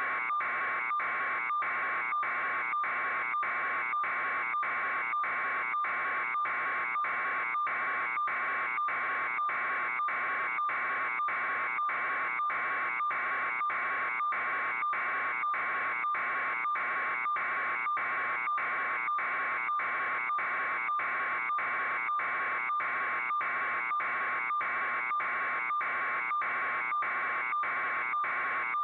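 Electronic buzzing that pulses evenly about twice a second over a steady tone, unchanging throughout.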